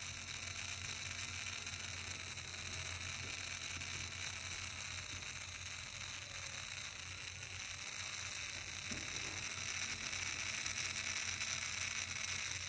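Steady hiss with a faint low hum and a faint wavering whine, a little louder near the end: a toy autorickshaw's small DC gear motor running and its plastic wheels rolling across a concrete floor.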